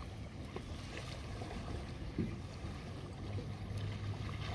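Lakeshore ambience: a steady rush of light wind on the microphone and small waves at the water's edge, with a few faint ticks.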